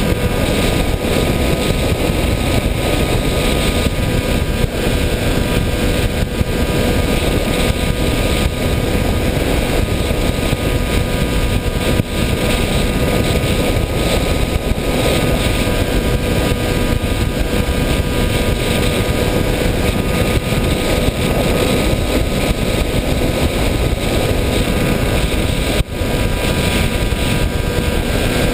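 Model aircraft's motor and propeller running steadily in flight, a constant drone with a steady whine over a loud rush of wind noise.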